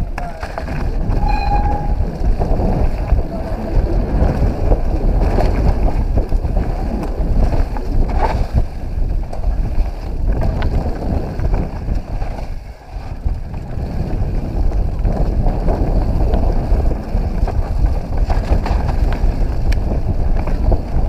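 Mountain bike running fast down a leaf-covered dirt trail, picked up by a GoPro on the ride: a constant low rumble of wind and tyres over the ground, with frequent knocks and rattles from the bike over bumps. A short high tone sounds about a second in.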